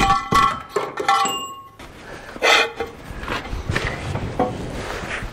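Steel hand tools clinking and clattering against each other and the dozer's steel: a sharp metal strike at the start, several ringing clinks over the next two seconds, then scattered scrapes and knocks. It is the sound of trying tools on seized, rounded-off bolts.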